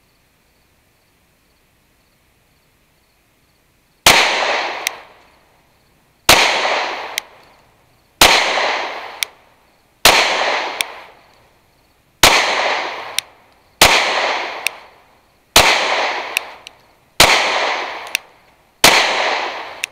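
Glock 43X 9mm pistol fired nine times at a slow, steady pace, a shot every 1.5 to 2 seconds after about four seconds of quiet, each shot trailing off in a short echo. A short, sharp click follows most shots by just under a second.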